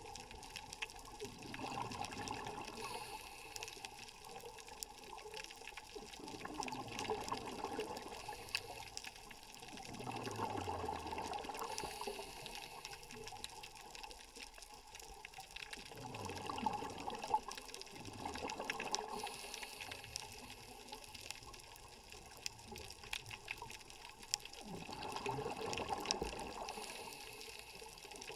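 Scuba diver's regulator underwater: exhaled bubbles rush and gurgle in swells, about six in all, one every four to six seconds in time with breathing, over a steady hiss with scattered faint clicks.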